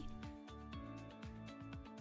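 Soft background music: steady held tones over a light, regular beat.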